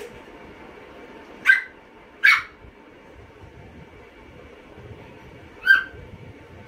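Small dogs barking in three short, sharp yaps, two close together about a second and a half in and one more near the end, as one dog contests a potato finger with the other, over a steady background hum.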